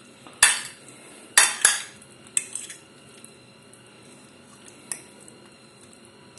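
A spoon clinking and scraping against a plate as filling is pushed off it: a few sharp clinks in the first three seconds, then one more faint tick near five seconds.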